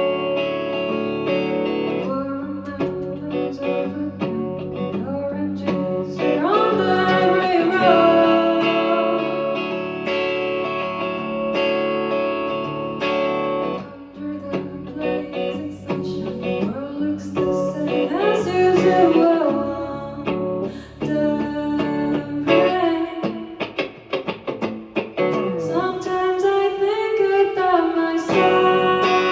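Live band music with guitar to the fore, and a lead line that bends in pitch several times.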